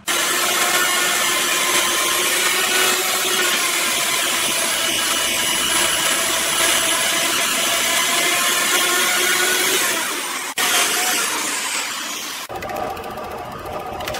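Electric chainsaw cutting into the bark and wood of a log mounted in a lathe, running steadily, with a sharp break about ten seconds in. Near the end the sound changes to the lathe spinning the log while a gouge cuts into the wood.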